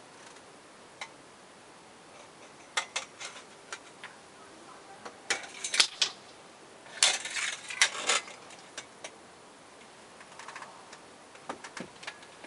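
Irregular clusters of short, sharp clicks and crackles over a faint steady background, most dense a little past the middle.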